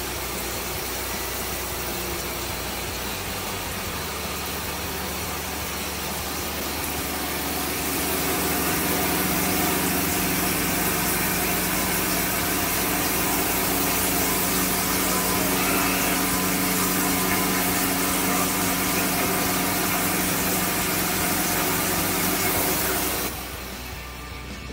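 CNC vertical milling machine running, its end mill spiralling out from a pre-drilled centre to mill a hole in a metal part: a steady machine hum with a hiss that grows louder about eight seconds in, then cuts off suddenly near the end.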